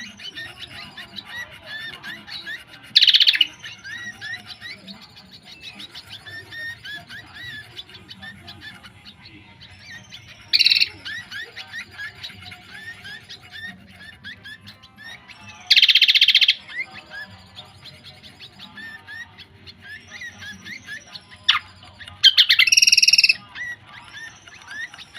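Birds chirping in quick, dense, repeated short notes, broken four times by a much louder call lasting about a second.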